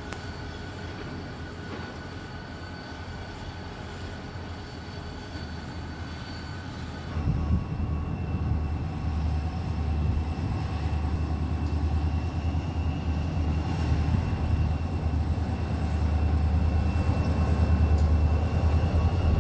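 Diesel switcher locomotive's engine running as it tows the dead steam locomotive along the yard track, with no exhaust beat from the steam engine. A quieter steady hum at first gives way about seven seconds in to a louder, deeper rumble.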